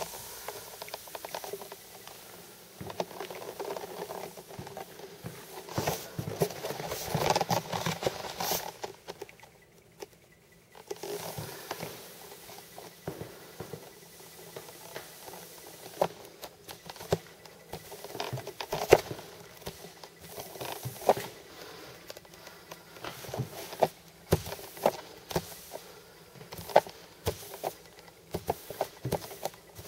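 T-bar finish applicator pad sliding over a wet coat of floor finish on hardwood, a steady wet swish broken by frequent small clicks and knocks from the pole and pad. It stops briefly about ten seconds in, then starts again.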